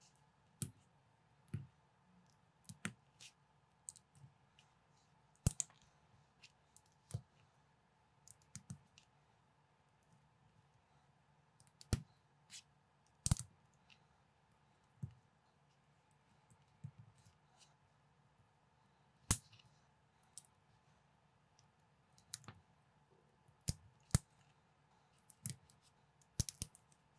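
Plastic building bricks clicking and snapping as they are pressed together and handled, in short, sharp clicks at irregular intervals, roughly one or two a second.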